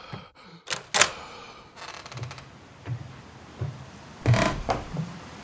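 Sharp mechanical clicks of a rifle being handled about a second in, then soft, evenly spaced thuds of footsteps, about one every 0.7 s, and a louder sharp burst just after four seconds.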